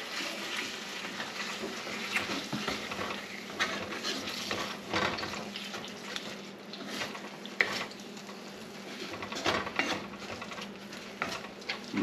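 A creamy mushroom sauce simmering and sizzling in a skillet while a wooden spoon stirs and scrapes through it. Scattered light knocks of the spoon against the pan sound over a steady hiss.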